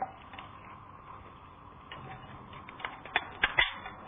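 Light clicks and taps of kitchen utensils against a bowl or board, sparse at first and coming quicker and sharper in the last second or so, over a faint steady hiss.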